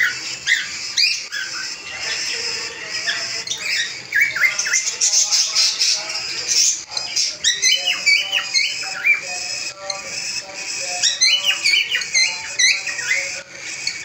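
A group of cockatiels chirping and calling continuously, many short rising chirps overlapping one another.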